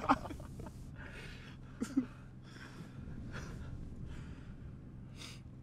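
Two men laughing: a short outburst, then breathy chuckles and exhales that die away.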